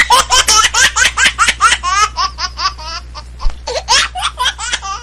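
Rapid, high-pitched laughter in quick bursts of about five or six a second, breaking off about three seconds in and then starting again.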